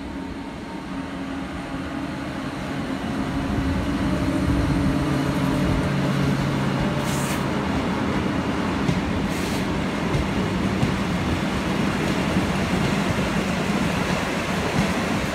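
SNCF BB 7200-class electric locomotive passing with a train of empty flat wagons. A hum from the locomotive grows louder as it approaches and fades about six seconds in. Then comes the steady rumble and clatter of the wagons' wheels on the rails, broken by two short high hisses about seven and nine seconds in.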